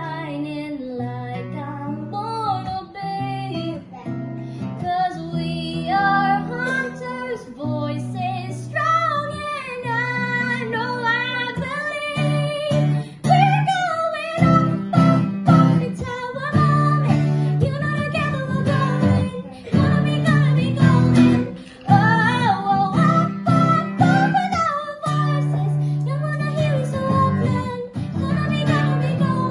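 A young female voice singing a wavering, held melody over acoustic guitar chords.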